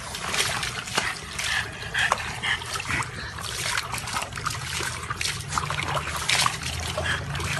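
Water splashing and sloshing in a plastic tub as a small dog thrashes about in it, with irregular splashes throughout and water spilling over the rim.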